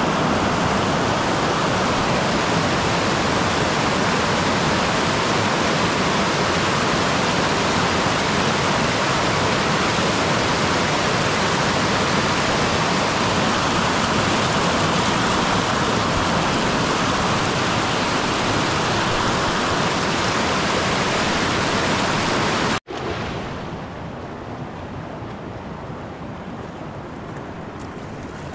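Loud, steady rush of a fast mountain river. About three quarters of the way in it cuts off abruptly, and a quieter steady flow of water takes over.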